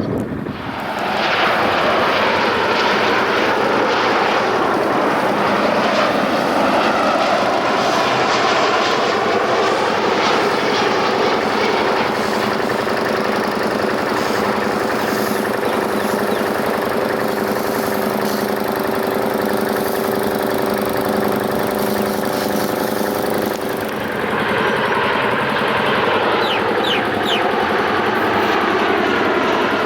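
Jet airliner engines passing close on landing, loud and continuous. The engine tones glide downward as the aircraft goes by, hold steady for a while, and the noise swells again after a brief dip near the end.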